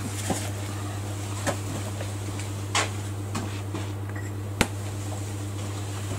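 Steady low mechanical hum of workshop machinery, with a few scattered light knocks and clicks, one sharper knock a little over halfway through.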